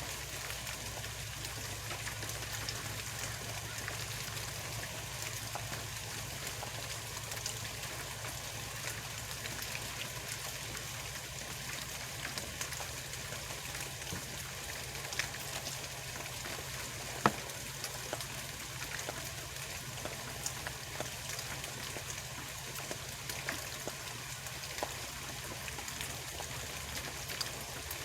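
Steady distant industrial-yard background: an even hiss over a low hum, with scattered light ticks and one sharper distant bang about 17 seconds in.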